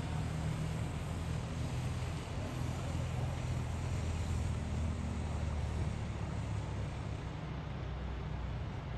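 Steady low engine hum over a wash of road traffic noise. The hum eases about six seconds in.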